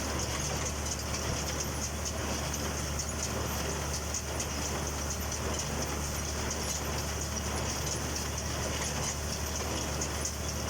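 Massey Ferguson baler and its tractor running steadily: a constant low engine drone with a steady high-pitched hiss over it.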